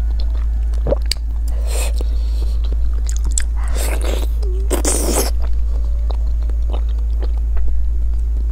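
A person biting and chewing thick slices of fatty pork close to the microphone, with many small clicks and three louder noisy bursts about two, four and five seconds in. A steady low hum runs underneath.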